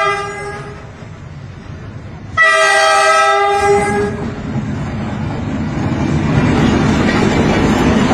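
Diesel locomotive sounding its horn: a blast that ends about half a second in, then a second, longer blast about two and a half seconds in. After that the engine and wheels rumble, growing louder as the train comes up and passes close by.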